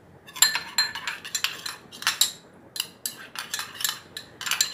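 Metal spoon stirring a runny sauce in a small glass bowl, clinking and scraping against the glass in quick, irregular strokes that start about a third of a second in.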